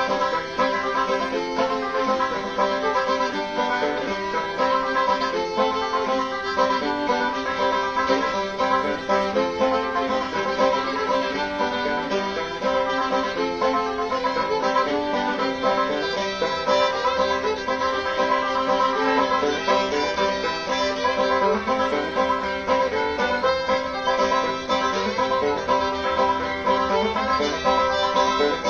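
Background music: a continuous instrumental tune.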